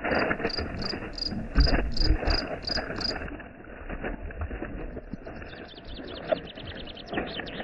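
Forest insects calling. A steady train of high chirps, about three a second, runs for the first three seconds, then a faster high trill starts about five seconds in, over rustling and a few low thumps.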